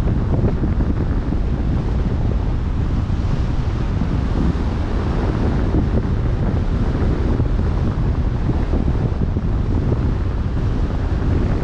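Wind buffeting the microphone in a steady low rumble, over the rush of open-sea waves.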